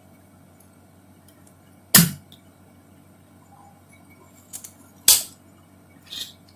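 Spring-loaded push-button desoldering pump firing twice, about three seconds apart: each press of the release button snaps the piston up with a sharp click as it sucks molten solder off a joint. Fainter clicks come in between and near the end.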